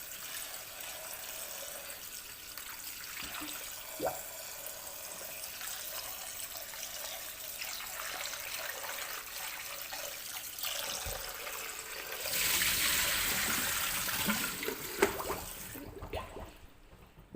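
Water running and splashing as soaked mushrooms are rinsed by hand, with a few light knocks. The flow grows louder for a few seconds late on, then stops shortly before the end.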